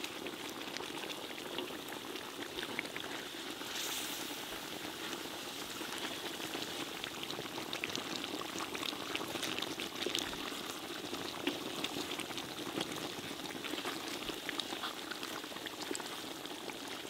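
Whole chickens sizzling and bubbling in thick masala in a large kadai, a steady dense crackle with the cooking water cooked off.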